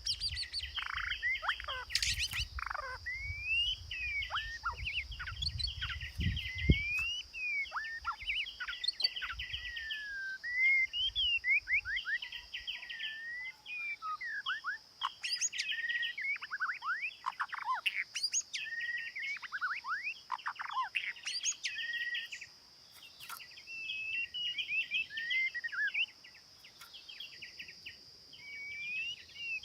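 A songbird singing a long, varied song of quick rising and falling whistles and chirps, over a steady high-pitched hiss.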